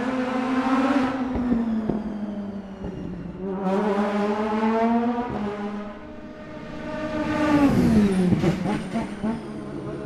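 Race car engines at high revs: a Pro Mazda car going by with its pitch falling, then an IndyCar engine surging up twice, the second surge ending in a steep drop in pitch about eight seconds in.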